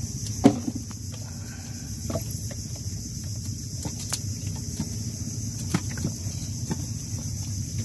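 Scattered taps, knocks and wet slaps as small fish and shrimp are picked by hand off a wet wooden boat deck, the sharpest knock about half a second in. A steady low drone sits under them.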